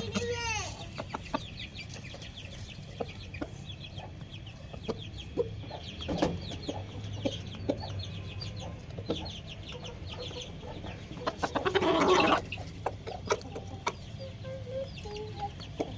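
Sindhi Aseel rooster clucking while pecking at feed on a concrete floor, with sharp pecking taps and a busy run of short high chirps. A loud rustling burst comes about twelve seconds in.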